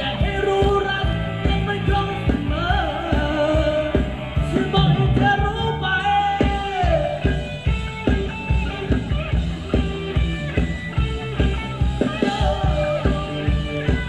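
Live band playing Thai ramwong dance music over a steady drum beat, with a singer's gliding melody through roughly the first half before held instrumental notes take over.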